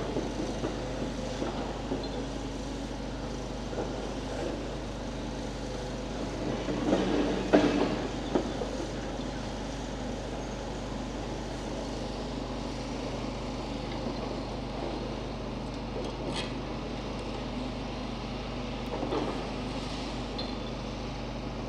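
Steady engine hum of machinery or traffic around a demolition site. A louder swell with a sharp knock comes about seven to eight seconds in.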